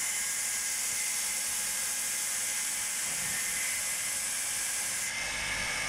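Belt sander running with a piece of rosewood pressed against the moving abrasive belt: a steady grinding hiss over the whir of the machine, shaping the walking-stick handle.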